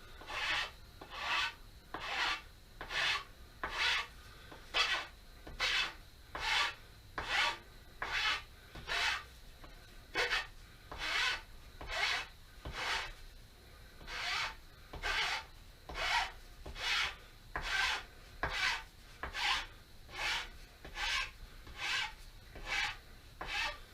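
A hand tool rasping the end of an aspen walking stick in steady, even strokes, a little more than one a second, shaving down the high spots so a rubber cane tip will fit.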